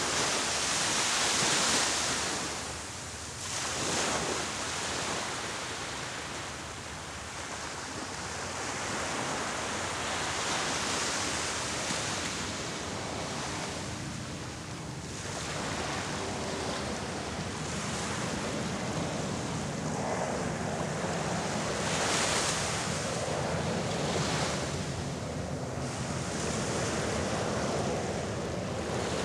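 Small ocean waves breaking and washing onto the beach, a hissing surf that swells and fades every few seconds.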